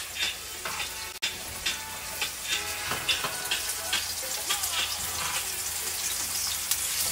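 Flour-coated chicken wings sizzling in hot oil in a frying pan, with a steady hiss and many irregular crackles and pops. The sizzle grows denser and brighter toward the end.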